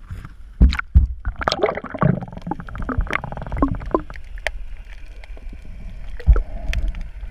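Water splashing and gurgling around a waterproof action camera as it goes from the surface to under water, with heavy knocks against the housing about a second in and again near the end. A dense run of bubbling in the first half gives way to muffled underwater ambience with scattered faint clicks.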